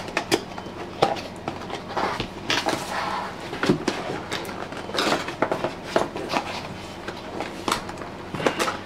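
Cardboard box being handled and pried open: irregular scraping, rubbing and light knocks of cardboard on cardboard as a stiff inner tray is worked out of its sleeve.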